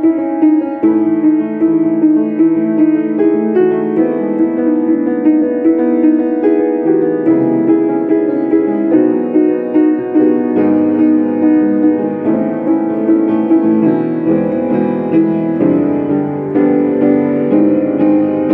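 Piano music: an even, steady stream of notes in the middle register, sustained and overlapping.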